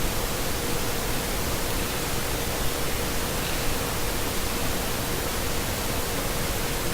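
Steady background hiss with a faint steady tone under it; nothing else happens.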